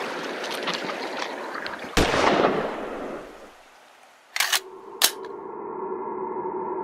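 A single rifle shot over steady rushing noise, its report echoing away over about a second. Then two short sharp hits and a held synth chord: a logo sting.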